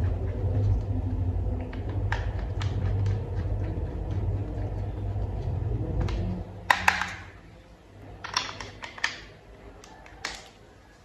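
Sharp plastic clicks and snaps of toy vehicle parts being handled and pressed together: two close together, then a quick run of clicks and a last one near the end. A low steady hum runs under the first half and drops away just before the first clicks.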